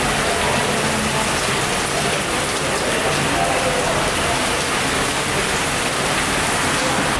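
Heavy rain pouring down on pavement and grass: a steady, dense hiss of countless drops.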